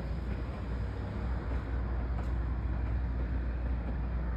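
Lit passenger coaches of a train rolling past: a steady low rumble of wheels on the track.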